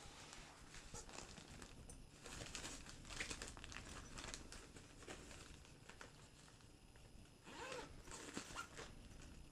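Faint rustling and crinkling of an AmazonBasics DSLR and laptop backpack's nylon fabric and padded interior being handled, loudest about two to four seconds in and again near the end.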